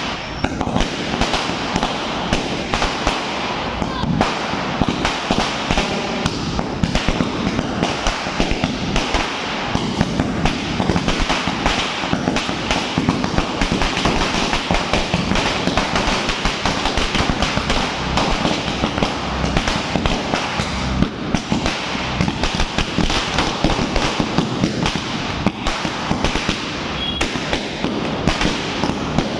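A long string of firecrackers, a 10,000-shot cracker garland, going off in one continuous, rapid crackle of bangs with no break.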